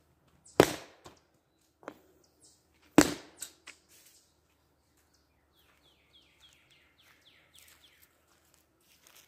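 Two hard hockey shots about two and a half seconds apart: a sharp crack as the stick blade strikes the puck on a homemade shooting board, each followed by a few fainter knocks. Near the end a bird sings a quick run of descending notes.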